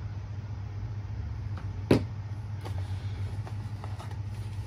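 Steady low hum in the room, with one sharp knock about two seconds in and a few faint taps after it, as a small plastic polish bottle and a cardboard kit box are handled on a table.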